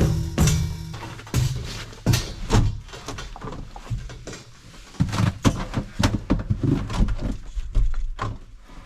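A locked shelter door being tried: irregular knocks, thuds and rattles of the door and its handle.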